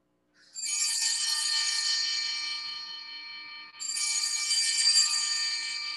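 Altar bells (a cluster of small sanctus bells) shaken twice, each peal jingling and then ringing out and fading. The ringing marks the elevation of the chalice at the consecration.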